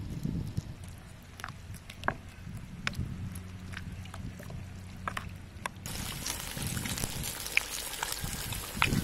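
A few light clicks of a spoon against a ceramic bowl as a chili-lime dipping sauce is stirred. About six seconds in, a sudden change to the steady hiss and crackle of a slab of pork belly deep-frying in hot oil.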